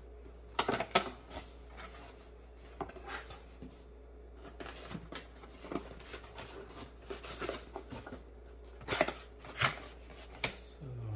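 Cardboard packaging being handled: box flaps folded open and a small cardboard accessory box slid out of a foam insert, with irregular scrapes, rustles and light knocks. The loudest bursts come about a second in and again around nine to ten seconds.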